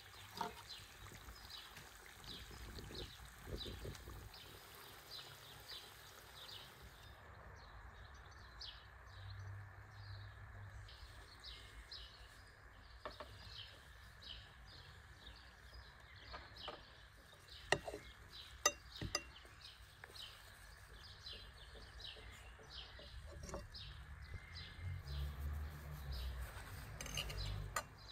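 Outdoor garden ambience: a high chirp repeating steadily about two to three times a second. A little past halfway come three sharp clicks of cutlery on dishes.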